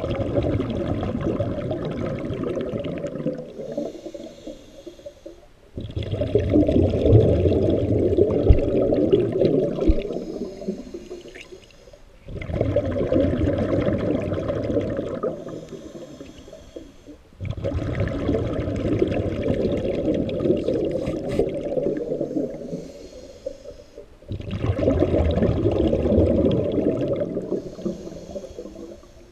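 Scuba diver breathing through a regulator, heard underwater: five long rushing bursts of exhaled bubbles, one about every six seconds, with a faint hiss of inhalation in the short gaps between.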